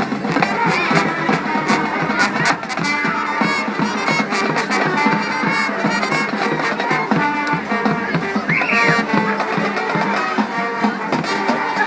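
High school marching band playing a swing jazz number, brass over a drumline with sharp, frequent strikes.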